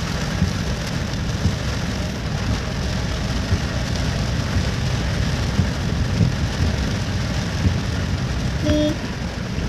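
Heavy rain drumming steadily on a vehicle's roof and windscreen, heard from inside, with a low rumble underneath. A short beep sounds near the end.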